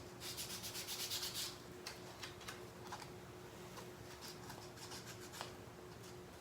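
Sandpaper rubbed by hand along the edges of a fingerboard deck: a quick run of scratchy back-and-forth strokes in the first second and a half, then lighter, scattered scrapes.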